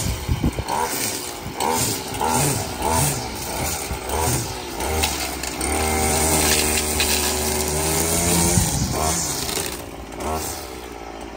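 String trimmer cutting grass, its small engine revving up and easing off over and over, then held at a steady high speed for a few seconds before dropping back near the end.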